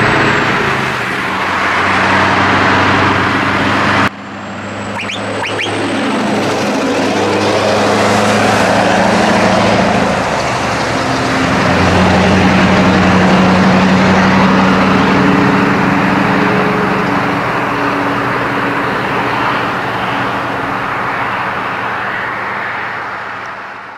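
Scania R620's V8 diesel with straight pipes, an open exhaust, running loud and deep as the heavy-haulage truck pulls past. There is an abrupt cut about 4 s in, the sound is loudest a little past the middle, and it fades near the end.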